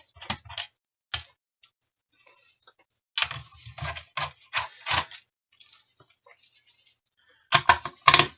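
Small screws and a precision screwdriver clicking and tapping against a graphics card's back plate as its screws are taken out. The sharp, irregular clicks come in clusters near the start, in the middle and near the end, with quiet gaps between.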